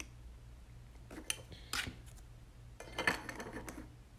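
A few light clicks and scrapes of trading cards and plastic card holders being handled, over a steady low electrical hum.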